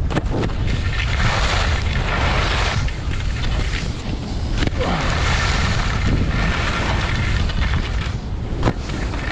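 Wind buffeting the GoPro's microphone during a fast downhill ski run, a steady low rumble, with skis hissing and scraping over packed snow in surges lasting a couple of seconds each and a few sharp clicks.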